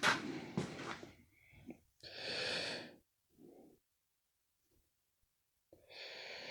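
A few light clicks of small metal parts being handled in the first second, then a man breathing out heavily about two seconds in and again near the end, while he concentrates on fitting a tiny wrist-pin circlip.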